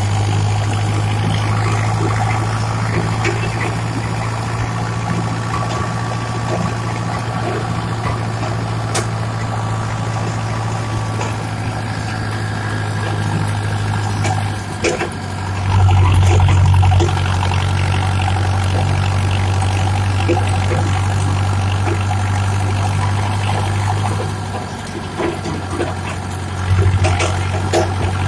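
Steyr 8073 tractor's diesel engine running steadily while pulling a tapan drag, with light rattling over its low hum. The engine note swells for about a second a little past halfway and again near the end.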